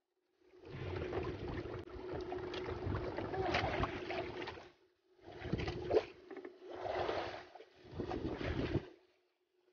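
Wind gusting over the microphone with sea noise around a small boat, coming in several surges with short lulls between them, over a faint steady hum.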